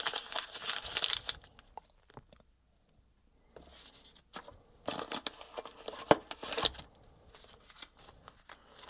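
Thin plastic packaging bag crinkling and tearing as it is opened by hand, then more rustling of plastic and paper packaging with a few sharp clicks.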